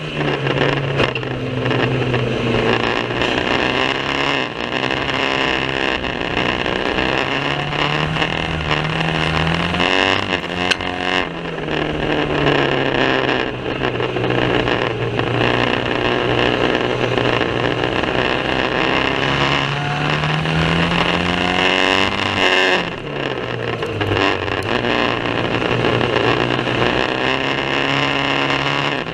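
Banger racing car's engine running hard, its pitch climbing and falling again and again as it accelerates and lifts off around the track, with a short drop about three quarters of the way through.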